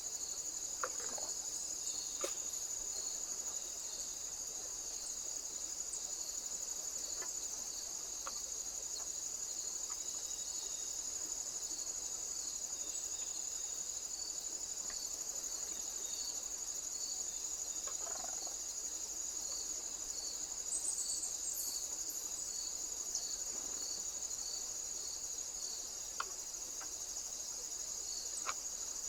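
Crickets chirping steadily: a continuous high-pitched trill, with a slower, evenly repeating pulse beneath it. A few faint clicks are scattered through it.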